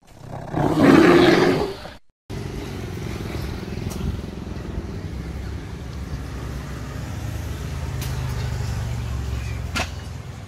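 A loud sound effect that swells and fades over about two seconds, then a street soundscape: a steady low rumble of motor traffic, with a sharp click near the end.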